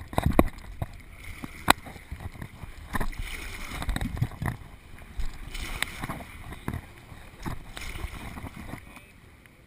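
Kayak paddling in seawater: paddle strokes splashing and water sloshing against a plastic sit-on-top kayak, with irregular sharp knocks and spray hitting the camera. It goes quieter near the end.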